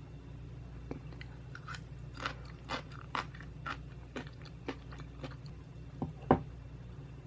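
Close-miked chewing of a mouthful of butter jangjorim bibimbap (soy-braised beef over rice): short wet chewing clicks about two a second, with one louder click near the end.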